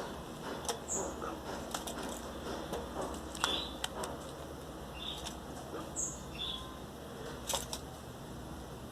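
Belgian canary chicks, 17 days old, giving short high begging cheeps about six times, among soft rustling and small clicks while they are hand-fed soft food.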